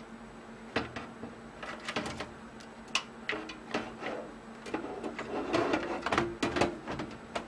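Irregular clicks, knocks and scrapes of a replacement power supply unit being handled and fitted into a metal desktop computer case, busiest in the second half.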